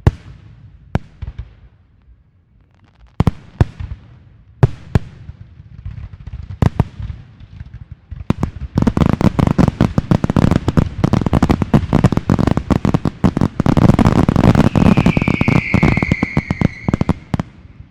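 Fireworks going off: scattered single bangs for about the first eight seconds, then a dense, rapid crackling barrage for about nine seconds. Near the end a whistle sounds and falls slightly in pitch.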